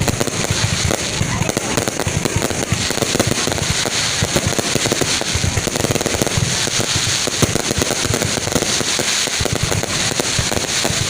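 Fireworks going off in a dense, continuous crackle of rapid pops with no break.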